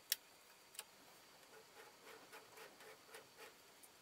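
Faint clicks and ticks of a screwdriver and belt tensioner being worked on an aluminium extrusion frame. There is one sharp click at the start and another just under a second in, then a run of soft, quick ticks.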